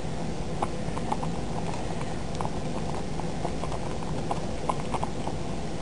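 A pot of pasta shells at the boil being stirred with a plastic spoon: a run of irregular light ticks and pops over a steady low hum.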